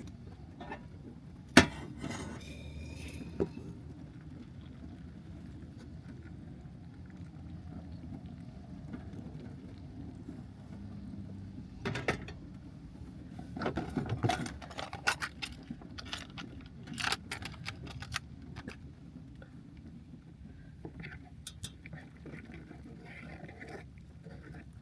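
Scattered clicks, taps and knocks of cooking things being handled while a meal is made, with a sharp click about a second and a half in and a busier cluster in the middle, over a steady low hum.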